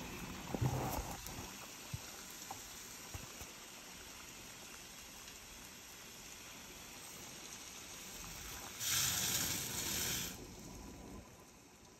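A saucepan of water bubbles steadily at the boil. Near the end, dry white rice is poured in from a glass measuring cup: a loud hissing rush lasting about a second and a half. A few light knocks sound near the start.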